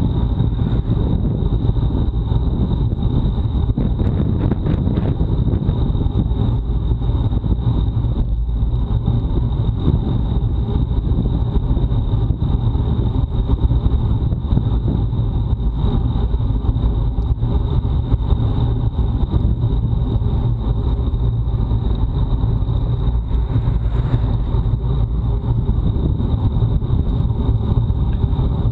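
Wind buffeting the microphone of a Garmin VIRB Ultra 30 action camera on a road bicycle ridden fast in a time trial: a steady, loud low rumble, with a thin constant high tone over it.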